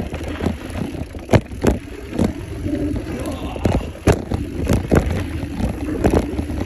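Mountain bike riding fast down a dirt trail: steady rumble of the tyres on dirt, with frequent sharp knocks and rattles from the bike as it hits bumps and rollers.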